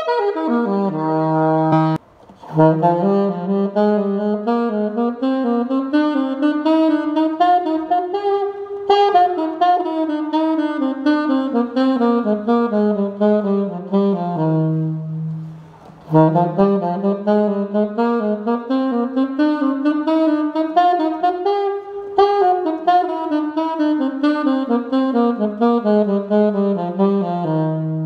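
Solo alto saxophone playing a major-scale pattern exercise: quick runs of short three-note groups that climb up the range and come back down, twice, with a short break in between. It opens and closes on a held low note.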